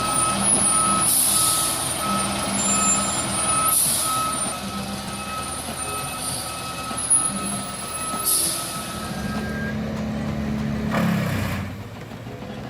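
Heavy log truck's engine running while its reversing alarm beeps steadily, the beeping stopping about nine seconds in. Several short bursts of air hiss sound over it.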